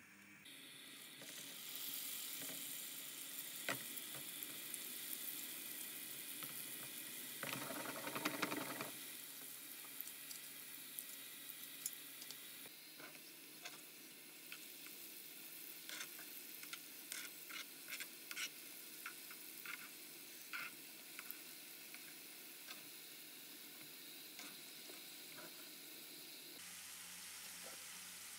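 Chicken spring rolls shallow-frying in hot oil in a pan: a steady sizzle with scattered pops and crackles from the oil. There is a brief louder burst of sizzling about eight seconds in.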